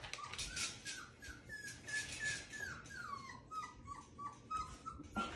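Labradoodle puppy whining in a run of short, high whimpers, about three a second, several falling in pitch: a puppy crying for attention. Faint clicks and taps sound underneath.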